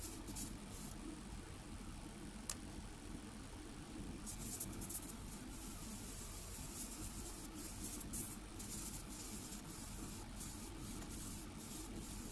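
Quiet handling of a gravity-feed airbrush's small metal parts with tweezers: rubbing and a sharp tick about two and a half seconds in, with short bursts of faint hiss over a low steady rumble.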